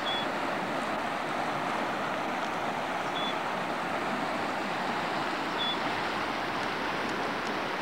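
East Fork of the Carson River rushing steadily, an even hiss of flowing water, with three brief faint high peeps over it.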